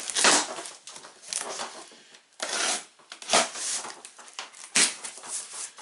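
Cardboard shipping box being opened by hand: packing tape slit and pulled free and the flaps folded back, heard as a series of short, irregular cardboard scrapes and crackles.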